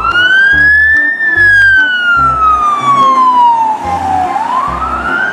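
Police siren wailing: the pitch sweeps up quickly, falls slowly over about three seconds, then climbs again near the end.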